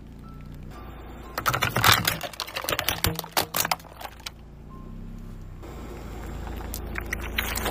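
Hard plastic toys cracking and snapping under a car tyre: a rapid run of sharp cracks from about one and a half seconds in, lasting roughly three seconds. Before and after it, a low, steady engine hum.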